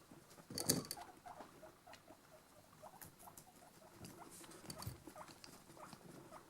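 A guinea pig vocalising to itself: a run of short, soft squeaks, about two or three a second. A brief louder rustle comes about half a second in.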